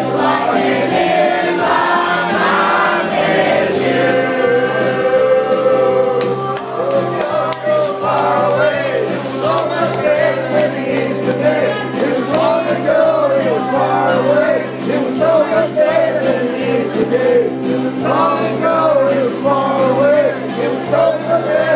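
Loud music with several voices singing a melody over steady bass notes.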